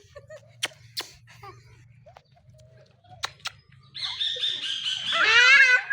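A few sharp clicks, then a baby's high squeal from about four seconds in: breathy at first, then a loud, wavering pitched shriek near the end.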